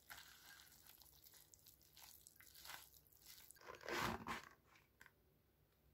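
Faint crackling and rustling of a thin clear plastic takeout lid being handled, loudest about four seconds in as it is pulled off a black plastic soup container, followed by a short click.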